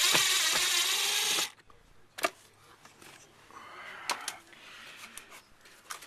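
Power drill running for about a second and a half, backing out a screw, then stopping, followed by a few sharp clicks and knocks.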